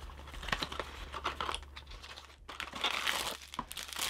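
Plastic wrapping on a packet of Jaffa Cakes crinkling and crackling as it is handled and opened. The crinkling is irregular, and there is a denser burst of it near the end.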